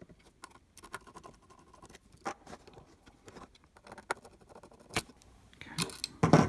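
Small screwdriver and needle-nose pliers working small screws back out of nylon standoffs: a run of light clicks and scratchy scrapes, with a few louder knocks near the end.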